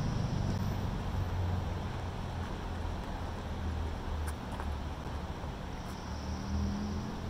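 Steady low rumble of outdoor background noise, with a few faint short clicks around the middle.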